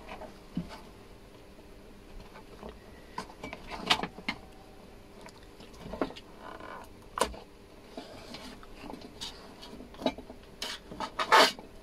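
Scattered clicks, rattles and light knocks of an LED TV main circuit board being handled: cable connectors pulled off the board and the board turned over onto cardboard, with the loudest knocks near the end.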